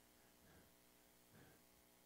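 Near silence: faint room tone, with two brief faint sounds about half a second and a second and a half in.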